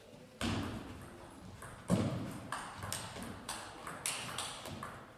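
Table tennis rally: the ball clicking off the bats and the table in quick alternation, about two hits a second, with the loudest hit about two seconds in.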